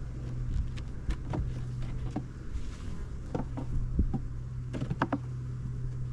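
Honeybees humming in an opened hive as frames are handled, with scattered clicks and knocks from the frames and hive tool over a steady low hum.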